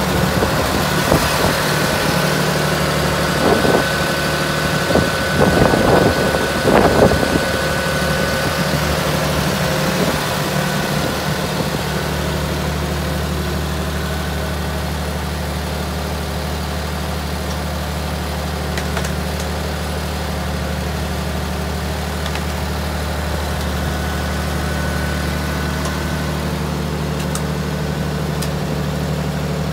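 Engine of a firewood processing machine running steadily, with a few louder, irregular bursts between about three and seven seconds in, then settling to an even hum.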